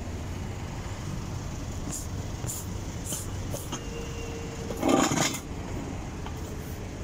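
Steady low rumble of a vehicle engine running nearby, with one short loud noisy burst about five seconds in.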